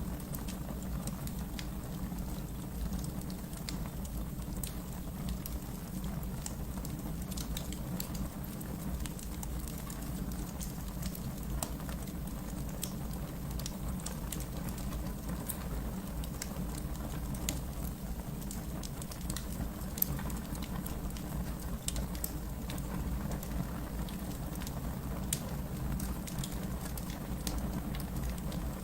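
Wood fire burning in a fireplace: a steady low rumble of flames with frequent small crackles and pops scattered throughout.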